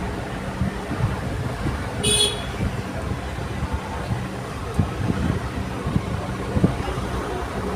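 Steady low rumble of road traffic, with a short vehicle horn toot about two seconds in.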